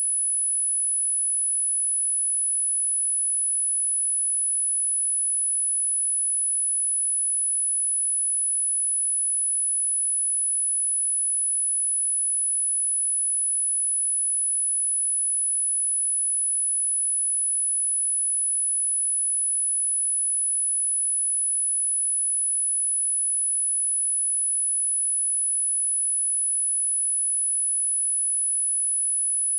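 A steady, very high-pitched 11014 Hz pure sine tone, a speaker test tone of the kind played to shake water and dust out of a speaker.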